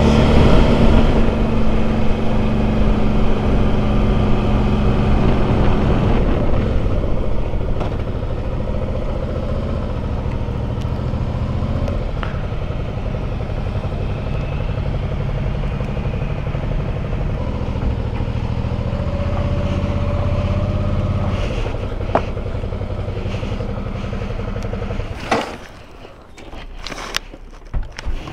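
Motorcycle engine running steadily under way, its pitch shifting a little with speed. About 25 seconds in the engine sound drops away, and a few sharp knocks and clicks follow.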